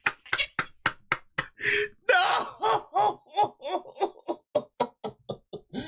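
A man laughing hard and helplessly: breathy, wheezing gasps give way to a rapid string of short ha-ha pulses, about four a second.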